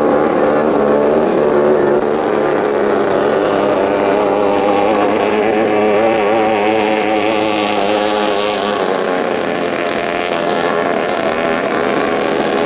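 Engines of BT9 two-ring class racing longtail speedboats running at full throttle down the course, a loud, steady engine note that wavers slightly in pitch.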